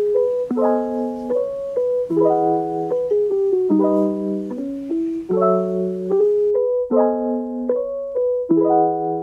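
Background music: a piano playing a slow, repeating pattern of chords, changing about every second or so.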